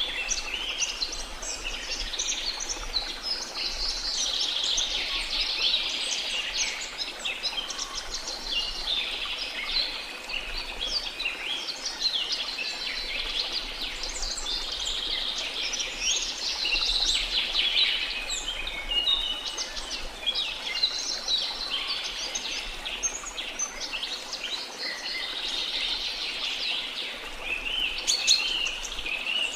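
Dense chorus of many tropical rainforest birds chirping, trilling and calling over one another without a break.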